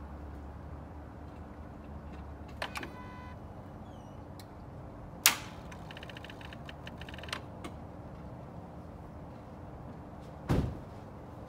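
Clicks and knocks around a truck that does not start. There is a sharp knock about five seconds in, a short run of chime-like tones after it, and a heavy low thud near the end.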